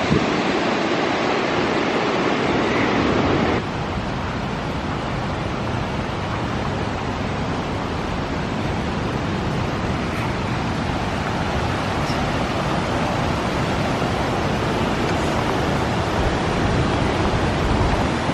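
Steady rushing of a waterfall, a continuous roar of falling water, dropping slightly in level about three and a half seconds in.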